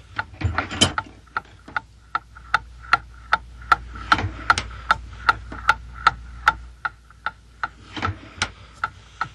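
Clock-like ticking of a time bomb, even and regular at about two and a half ticks a second.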